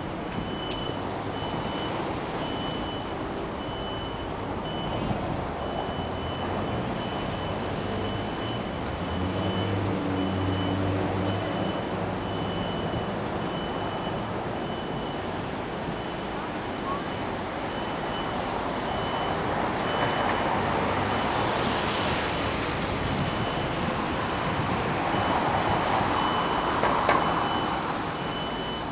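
Street traffic on wet pavement with a high electronic beep repeating steadily throughout, of the kind a vehicle's reversing alarm makes. A low engine hum comes through in the middle, passing cars swell louder in the last third, and there is one short knock near the end.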